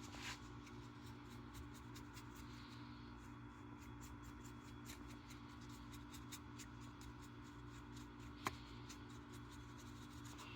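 Faint light brushing and scratching on a taxidermy bird's legs, with scattered small ticks and one sharper tick about eight seconds in, over a steady low hum.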